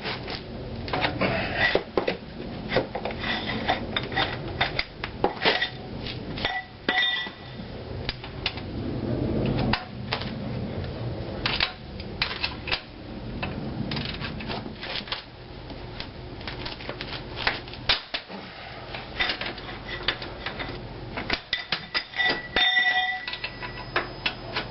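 Hand tools clicking and clanking on steel as the loosened 21 mm brake caliper mounting bolts are worked out, with many quick clicks throughout. Two ringing metallic clinks, about seven seconds in and again near the end.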